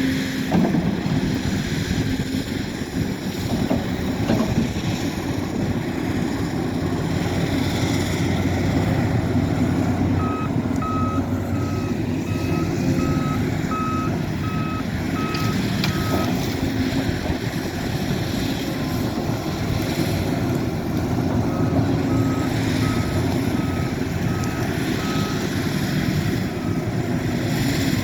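Heavy earthmoving machine's diesel engine running steadily, with a reversing alarm beeping about twice a second in two spells: one starting about ten seconds in, the other a few seconds before the end.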